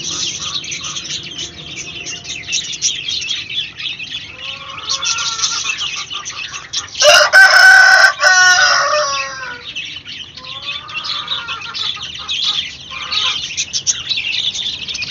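A flock of three-week-old country-chicken chicks peeping constantly, with an adult hen clucking now and then. About halfway through a rooster crows once, loudly, for about two seconds.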